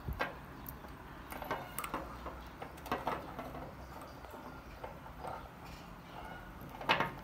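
Scattered light clicks and taps of LED headlight bulbs and their small boxes being handled, with a few louder knocks near the end.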